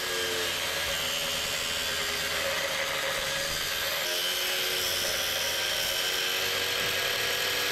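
Angle grinder with an abrasive cut-off disc cutting through a seized, pitted metal drive shaft, running steadily under load. The shaft is being cut apart because it is seized in several places at once.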